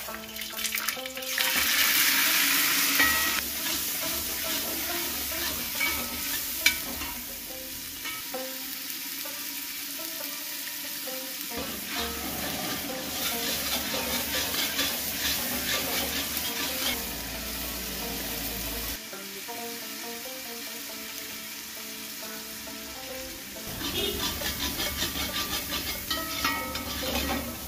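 Raw onion paste sizzling and frying in hot oil in a large metal pot, stirred with a long metal ladle that scrapes around the pot. The sizzle is loudest about two seconds in as the paste goes in, then settles to steady frying and stirring.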